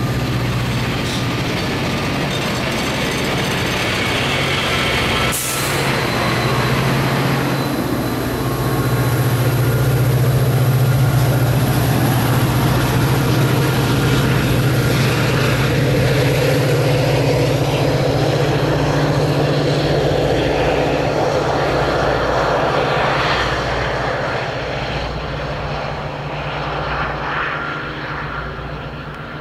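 Metra commuter train moving through the station: bi-level coaches rolling on the rails and the pushing diesel locomotive's engine running with a steady drone. It grows louder about eight seconds in and eases off near the end, with one sharp click about five seconds in.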